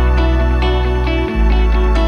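Background music: a deep sustained bass note that shifts to a new note about a second and a quarter in, with quick picked notes above it.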